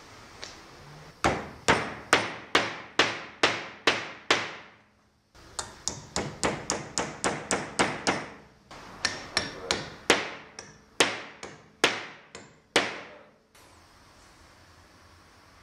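Repeated hammer blows seating a restored hammer's head onto its new walnut handle: three runs of quick strikes, about two a second, each with a short ringing tail. The strikes stop about three-quarters of the way in.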